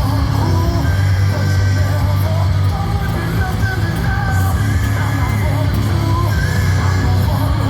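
Background rock music with distorted guitar, a strong steady bass and a sung or shouted vocal line.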